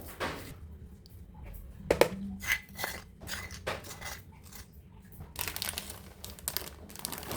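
Kitchen handling sounds: scattered clinks and taps of utensils against dishes, with rustling, busiest near the end.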